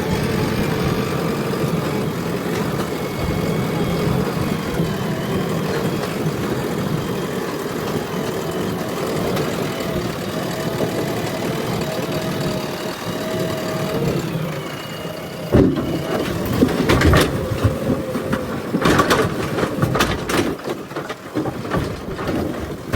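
JCB backhoe loader's diesel engine running steadily with a held hydraulic whine. About two-thirds of the way through, a run of sharp cracks and knocks starts, louder than the engine.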